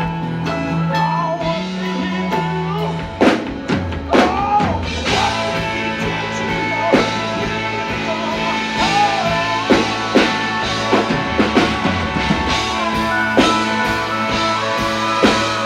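Live country band playing through a PA: acoustic guitar, pedal steel guitar, bass and drums, with a man singing lead. The drums come in with sharp hits about three seconds in, over sustained bass notes.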